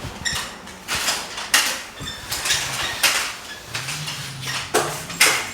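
Metal drywall finishing tools scraping and wiping joint compound along the joints in repeated short strokes, about two a second.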